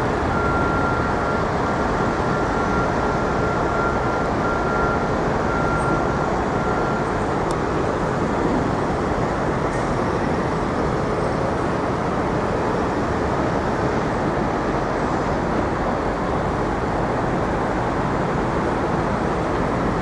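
Steady city street traffic noise: a continuous rumble of cars and trucks. A faint steady high tone runs through the first seven seconds or so.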